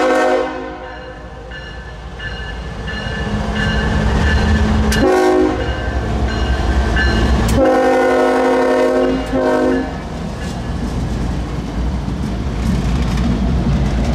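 Two light GE Evolution Series (Gevo) diesel locomotives pass close by, engines rumbling and wheels clicking over the rail joints. The lead unit's horn sounds for a grade crossing: a blast trails off at the start, then a short one about five seconds in and a longer one about eight seconds in.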